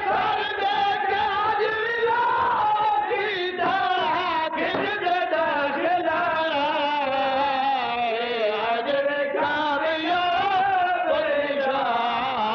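A zakir's sung recitation: one male voice chanting slowly and melismatically, holding long wavering notes with few breaks.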